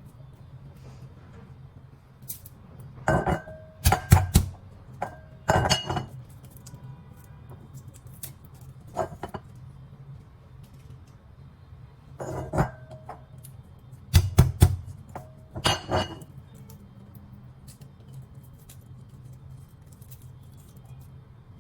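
Pestle striking a mortar as garlic cloves are pounded. There are two bursts of a few hard knocks, each with a brief clinking ring, separated by quieter handling.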